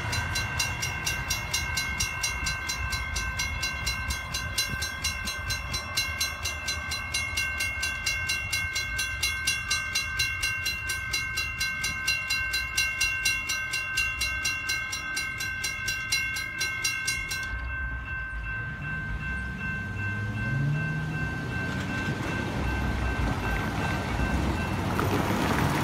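Railroad grade-crossing bells ringing with evenly repeated strokes. The nearer bells stop about 17 seconds in as the gates rise, while a farther crossing bell keeps ringing for several more seconds. Car engines then pull away and drive across, growing louder near the end.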